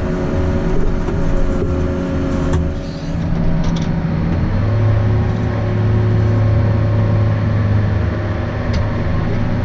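Farm tractor engine running steadily under a steady load, its low tone shifting down and growing stronger about four and a half seconds in.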